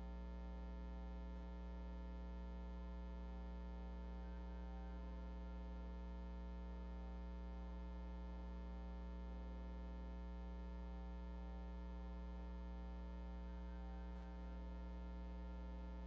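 Steady electrical mains hum with a stack of even overtones, strongest at the bottom, running through the recording.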